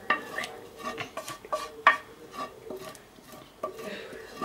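Fried Labskaus mixture being scraped out of a frying pan into a steel pot of potatoes: irregular clinks, knocks and scrapes of a utensil against the pan and pot, with one sharper knock just before the middle.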